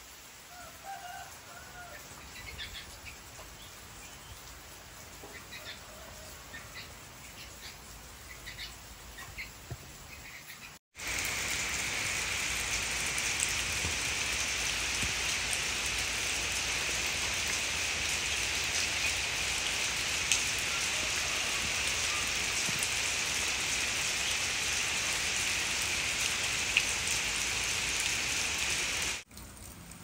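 Faint, scattered bird chirps. About eleven seconds in they give way to a steady, even rush of rain falling on foliage and a field, which stops abruptly just before the end.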